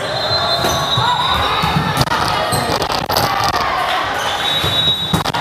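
Indoor volleyball rally: several sharp smacks of the ball being hit, with players calling out, echoing in a large sports hall.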